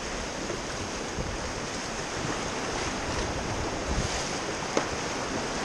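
Steady rush of river water around a paddled raft, mixed with wind noise on the microphone.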